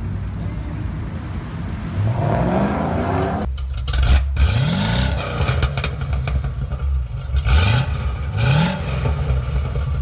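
1972 Chevrolet Chevelle's engine idling low and being revved: one longer rev a couple of seconds in, then three short throttle blips in the second half.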